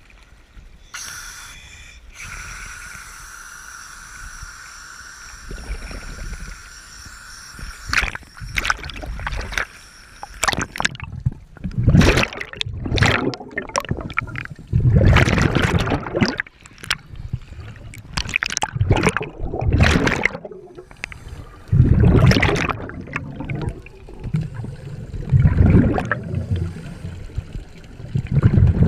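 Water sloshing around an action camera at the sea surface, then, once under water, scuba divers' exhaled bubbles gurgling in loud bursts every second or two.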